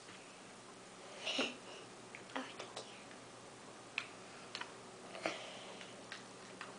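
Faint clicks of a metal fork against a plate as a young child eats cake, several scattered single taps, with a short mouth sound about a second and a half in, over quiet room hiss.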